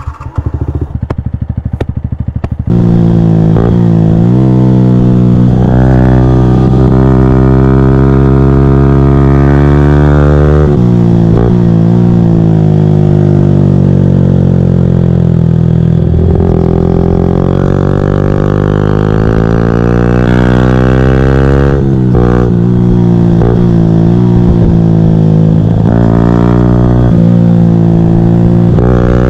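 2014 Yamaha YZF-R125 single-cylinder four-stroke engine through a full GPR Furore exhaust with no catalyst or baffle, accelerating hard through the gears: quieter for the first couple of seconds, then loud, the revs climbing and dropping sharply at each shift several times over.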